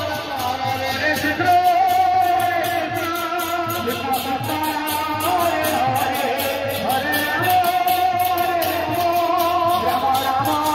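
Music: a sung melody with long held, gliding notes over instruments and a fast, steady beat.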